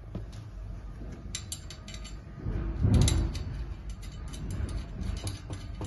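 Gold-plated iron frame and screen panel clicking and rattling as the pieces are handled and fitted together, with a heavier knock about halfway through.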